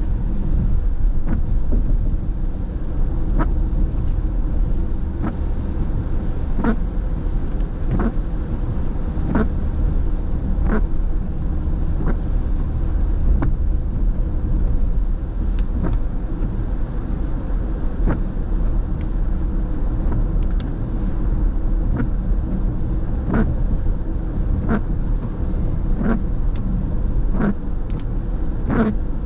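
Car driving on a wet road heard from inside the cabin: a steady low rumble of engine and tyres with a hiss of spray, and short soft ticks about every second or so.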